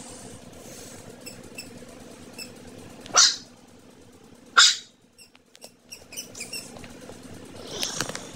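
Small dogs on a couch, with two brief, loud, breathy sounds from them about a second and a half apart, a few seconds in, over a low steady background.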